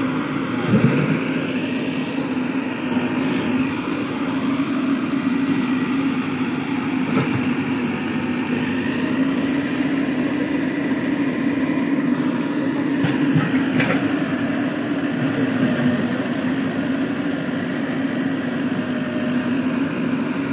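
Diesel engine of a JCB backhoe loader running steadily at a constant speed, with a few faint knocks.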